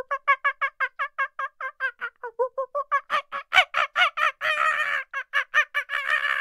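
A bird calling in a fast, even run of short pitched notes, about six a second, getting louder after about three seconds.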